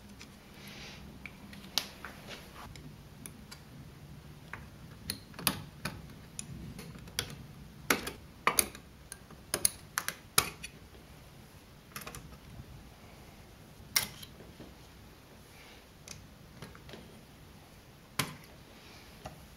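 Irregular sharp clicks and taps of fingers handling capacitors and wiring inside a vintage amplifier's metal chassis, most frequent about halfway through.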